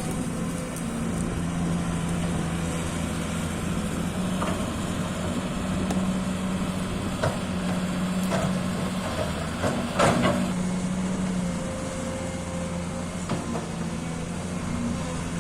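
Crawler excavator's diesel engine running steadily, with a few sharp metal clanks from the machine, the loudest about ten seconds in.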